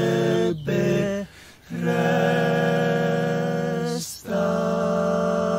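Male a cappella vocal quartet singing sustained chords without words. The chords break off briefly three times, the longest gap about a second and a half in, and a new chord starts about four seconds in and is held on.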